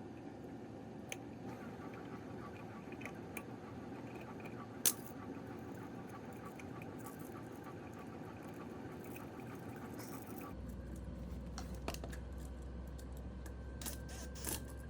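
Faint clicks and taps of hands and a tool working the stiff copper wire ends straight for the outlet's terminals, with one sharper click about five seconds in. A steady low hum comes in about ten seconds in.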